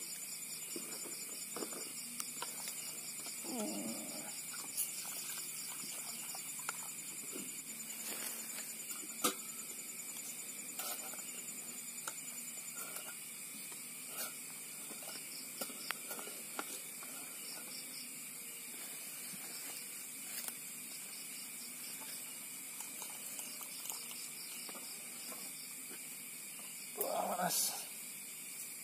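Steady high chorus of night insects, crickets and the like, with a pulsing trill that fades out about halfway through. Over it come soft knocks and water swishing from rice being washed by hand in a cooking pot, and one louder short sound near the end.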